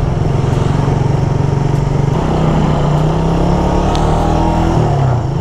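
Suzuki Raider 150 carburetted motorcycle engine running while riding, with wind on the microphone. The engine note climbs a little about two seconds in and drops near the end as the bike eases off for a turn.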